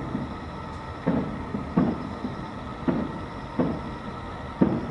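Distant aerial fireworks shells bursting: a string of about five dull booms, roughly one a second, each trailing off in a short rumble.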